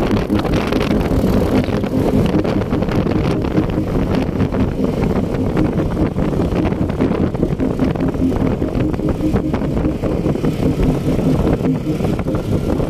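ATV (quad bike) engine running steadily while it is ridden over sand, with wind buffeting the microphone.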